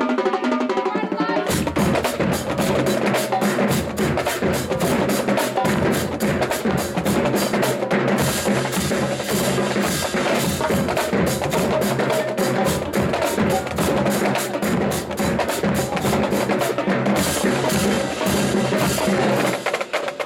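Marching band drumline playing a fast, loud percussion cadence of snares, bass drums and rim clicks. The deep bass drums come in about a second and a half in and stop shortly before the end.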